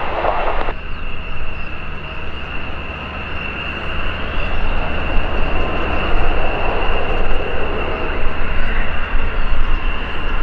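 Turbine aircraft engines running with a steady high whine over a broad rushing noise, growing louder about four seconds in.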